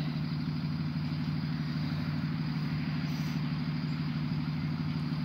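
School bus engine idling steadily at a stop, a constant low drone.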